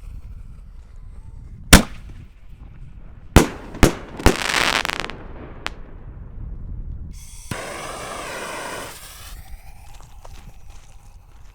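Aerial bursts of 7-inch triple-break canister firework shells: a sharp bang, then three bangs in quick succession, the last followed by a loud hiss. Later a steadier hiss lasts about two seconds.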